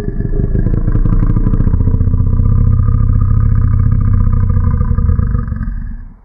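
A Freesound 'cow noise' sample (not a real cow) pitched down 70% and slowed to half speed in Audacity, playing back as a long, deep monster growl with a fast grainy flutter. It is a middle stage of building a monster sound effect and stops after about six seconds.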